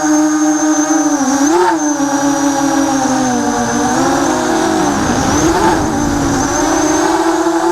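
Racing quadcopter's four Cobra 2204 2300kv brushless motors on Little Bee 20A ESCs buzzing in flight, their pitch rising and falling with the throttle. A thin steady high whine runs above them, and a rush of wind comes in around five seconds in.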